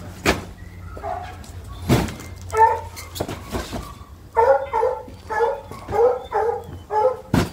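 A dog barking in short sharp barks, a few at first and then a quick run of them in the second half. A few hard thumps of cardboard boxes being set down come between the barks, the loudest just before the end.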